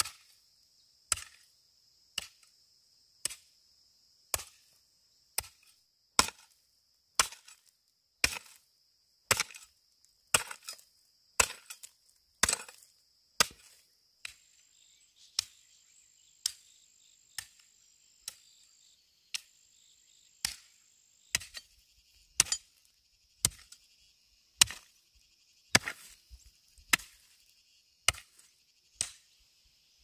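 Steady chopping strikes of a hand tool, about one a second, some landing as double hits. Insects buzz steadily behind.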